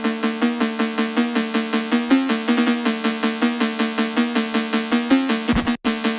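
Electronic background music: a fast, repeating synthesizer melody, with a brief break about five and a half seconds in.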